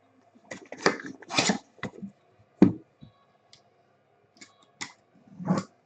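Trading-card packaging and cards being handled, giving a run of short, irregular rustles, scrapes and light knocks.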